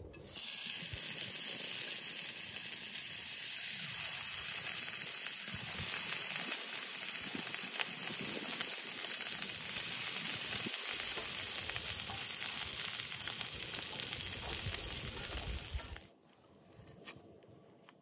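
Diced fat frying in a wide steel pan over a wood fire: a dense, steady sizzle with small crackles. It cuts off suddenly near the end.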